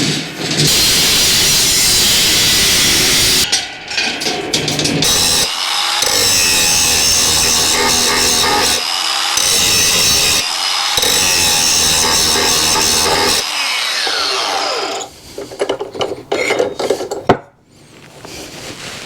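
Power tool cutting through stock in several long runs with short breaks, its motor winding down about fourteen seconds in, followed by a few sharp knocks and clinks of the pieces being handled.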